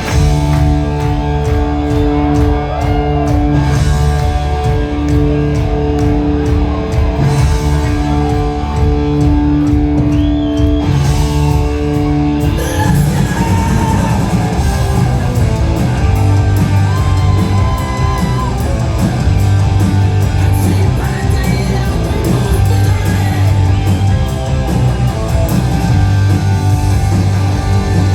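Punk rock band playing live at concert volume: electric guitars, bass and drums, with some singing. About twelve seconds in, the held guitar notes give way to a busier full-band part.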